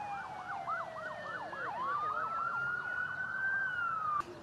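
Emergency vehicle sirens sounding together: a fast yelp rising and falling about four times a second, over slower wailing tones that glide down and then up. The sirens cut off abruptly near the end.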